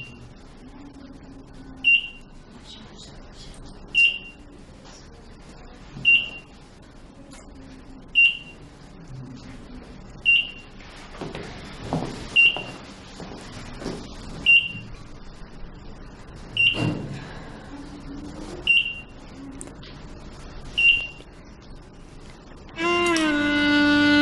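Hospital medical monitor beeping: a short, single high tone repeating about every two seconds. Near the end, string music with violin comes in loudly.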